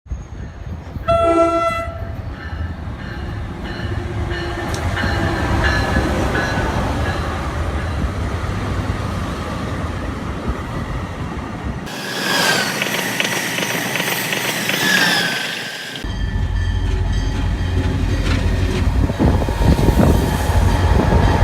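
Approaching SEPTA Silverliner V electric commuter train sounding its horn: a short chord about a second in, then a longer blast of about four seconds starting some twelve seconds in, over a steady low rumble.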